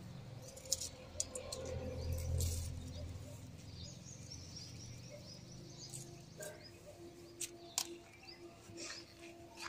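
Small birds chirping, with several sharp clicks and rustles of tomato plants being handled during picking.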